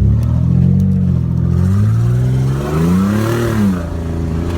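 Chevy Blazer engine running under throttle as the truck spins donuts, revving up about two and a half seconds in and dropping back again just before the end.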